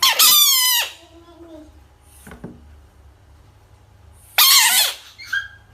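A frog giving two loud, high-pitched squealing screams about four seconds apart, each under a second long, wavering and dropping in pitch at the end: a defensive distress call.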